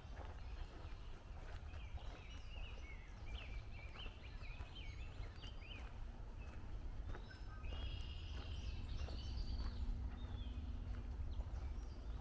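Several songbirds chirping and trilling in woodland, calls overlapping and busiest about eight to ten seconds in, over soft footsteps on the trail and a steady low rumble.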